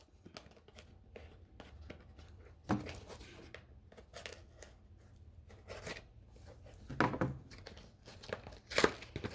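Packing material being handled and torn: crinkling and tearing in short bursts a few seconds apart, between quieter rustling.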